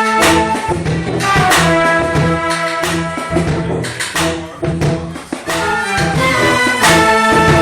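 Live jazz ensemble playing: horns, saxophone among them, hold chords over a low bass line with regular sharp hits. The band eases off briefly about five seconds in.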